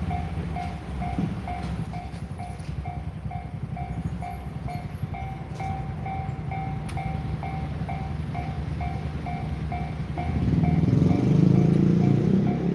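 Japanese railway level-crossing warning bell ringing steadily, about two and a half dings a second, over the low rumble of a passing train. The rumble grows louder about ten seconds in.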